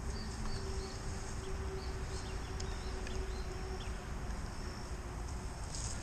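Quiet outdoor ambience: a steady hum of insects with a few faint short chirps, over a low rumble.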